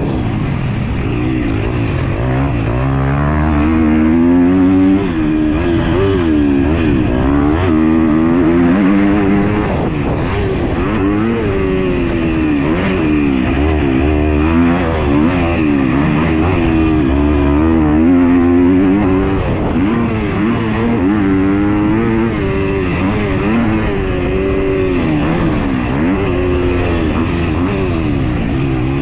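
2021 Husqvarna FC 250's single-cylinder four-stroke engine ridden hard on a motocross track, the revs climbing and dropping back again and again as the throttle is opened and closed.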